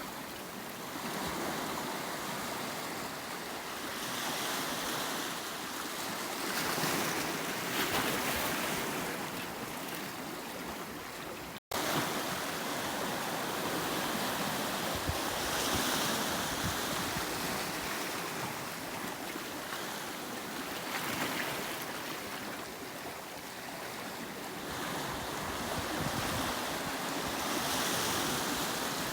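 Sea surf breaking and washing on the shore, a steady rush that swells and eases every few seconds. The sound drops out for an instant about twelve seconds in.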